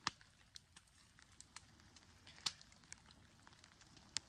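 Faint outdoor hiss with about eight irregular sharp ticks and crackles, the loudest at the start, midway and near the end.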